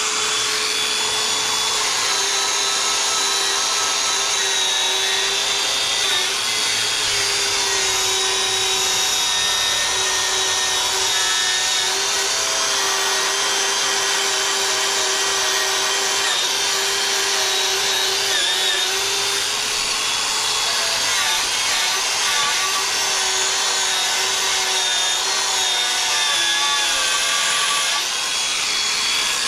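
Electric angle grinder running steadily at full speed on steel for the whole stretch, a constant whine over a hiss that wavers only slightly.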